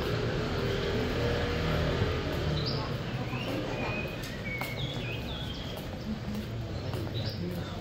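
Street ambience: a steady background hum with faint distant voices, and several short bird chirps between about two and five seconds in.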